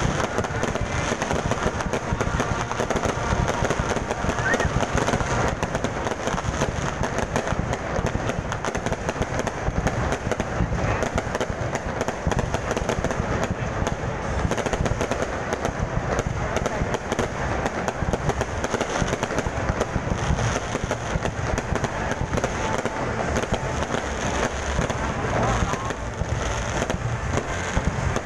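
Aerial fireworks display: a dense, unbroken run of rapid bangs and crackles from bursting shells.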